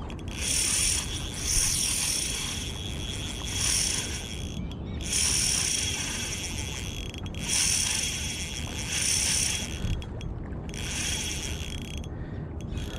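Shimano Stradic CI4+ 1000 spinning reel running in bursts of a second or two with short breaks, as a hooked fish is played on ultralight tackle.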